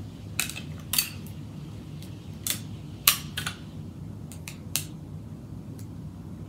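Irregular small clicks and taps, about eight of them, the sharpest about three seconds in: hand-held craft materials being handled and set against each other at a desk.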